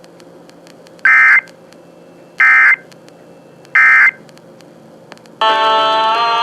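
Emergency Alert System end-of-message data signal: three identical short bursts of warbling data tone, about a second and a half apart, marking the close of the alert. About a second later a sustained musical chord starts and cuts off abruptly.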